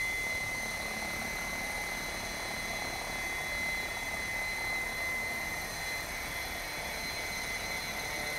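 Electric 700-size RC helicopter (Assault 700) hovering at low head speed, around 1100 RPM: a steady rotor whoosh with a constant high motor-and-gear whine.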